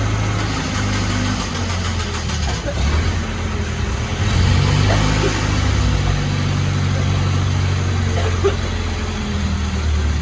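Truck-mounted crane's engine running steadily, its note shifting up and down several times as the hydraulic boom is worked and the hook lowered.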